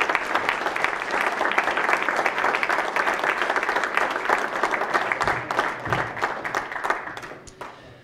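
Audience applauding: dense clapping that thins out and dies away about seven seconds in.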